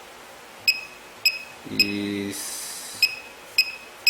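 Laser projection keyboard's electronic key-click sounding once for each keystroke: six short, high clicks at uneven spacing as letters are typed. A short hiss comes just after the middle.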